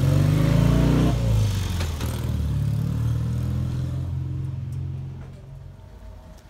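A motor vehicle engine revving up as it accelerates, with a sudden drop in pitch about a second in like a gear change. It then runs on more steadily and fades away near the end.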